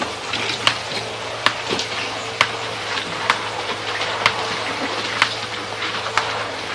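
Arrastra ore mill running on its diesel drive: a steady low engine hum with a sharp mechanical clack repeating about once a second.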